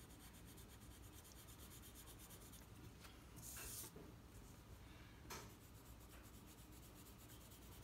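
Faint scratching of a colored pencil shading on paper. A brief louder swish comes about three and a half seconds in as the paper is slid across the table, and a light tick a little after five seconds.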